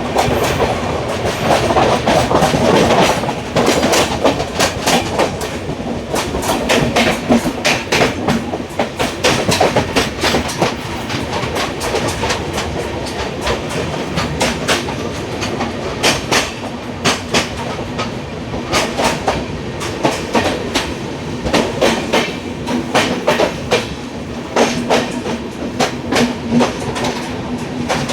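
Wheels of an Indian Railways LHB passenger coach running on the track: a steady rumble with many sharp clicks as the wheels pass over rail joints.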